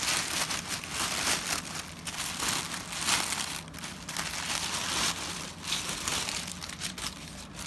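Brown kraft packing paper crumpling and rustling in irregular bursts as it is pulled by hand out of a cardboard box.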